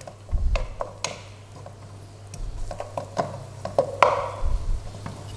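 Wooden spatula stirring garlic and ginger in oil in a non-stick wok, knocking and scraping against the pan in irregular taps, the loudest about four seconds in.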